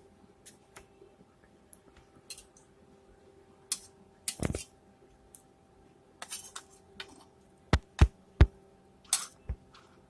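A metal spoon or ladle clinking and scraping against a cooking pot, with three sharp knocks in quick succession near the end, over a low steady hum.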